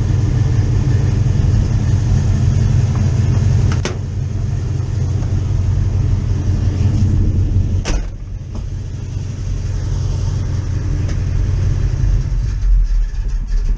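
1984 Chevy Silverado's engine running at idle, a steady low rumble. A sharp knock comes about four seconds in and another about eight seconds in; after the second, the rumble sits lower and a little quieter.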